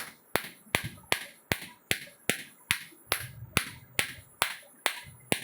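A steady run of sharp taps, about two and a half a second and evenly spaced, as a hammer knocks a new copper winding down around the stator of a cooler fan motor to seat it.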